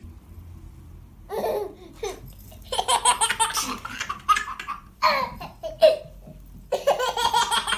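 A baby laughing in four bursts of giggles, the longest a little under three seconds in.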